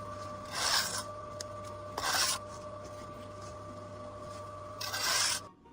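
Three short rasping scrapes, about two seconds apart, over a steady mechanical hum that drops away near the end.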